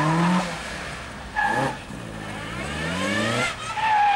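Car engine revving hard, its pitch climbing several times through quick accelerations, with tyres squealing briefly about a second and a half in and again near the end as the car is flung through tight autotest turns.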